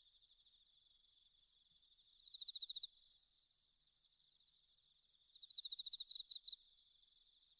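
Faint high-pitched insect trilling, like crickets: a steady chirping with two louder bursts of rapid pulses, a little after two seconds in and again about five and a half seconds in.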